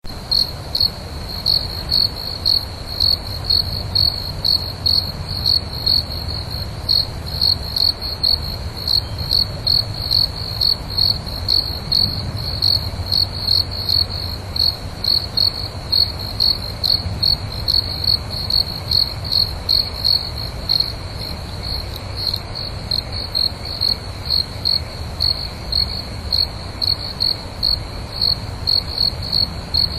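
A cricket chirping steadily at night, a high, even chirp repeating about two to three times a second, over a low, steady background rumble.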